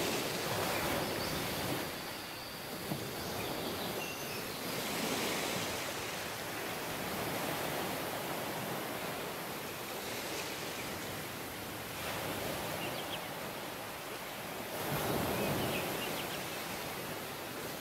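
Ocean surf washing on a beach, a steady rush that swells and eases every few seconds as waves break.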